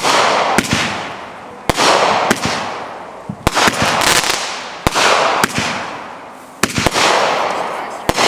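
Aerial fireworks bursting in quick succession, often two sharp bangs close together about every second and a half. Each burst is followed by a crackling hiss that fades over about a second.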